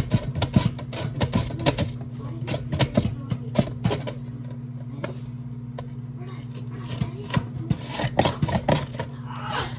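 Vegetables being cut with a sharp kitchen slicer: irregular quick clicks and cuts, with a pause about halfway through before the cutting starts again.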